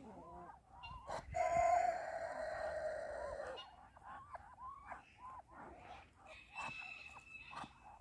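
Muscovy ducks giving short, soft chirping calls over and over. A loud, long, slightly falling call cuts in about a second and a half in and stops abruptly about two seconds later; it is the loudest sound here.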